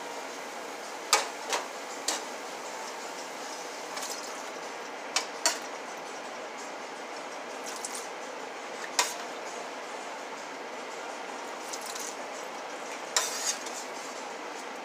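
Metal spoon clinking against a metal cooking pot as cannellini beans are spooned in: a handful of sharp clinks in small clusters, over a steady low hiss.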